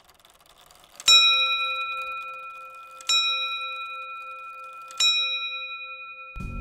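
A clock's bell struck three times by its hammer, about two seconds apart. Each strike rings on and slowly dies away.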